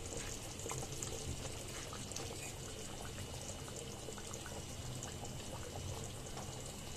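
Thick tamarind-and-coconut fish curry bubbling at a boil in a clay pot, with many small scattered bubble pops over a steady low hum.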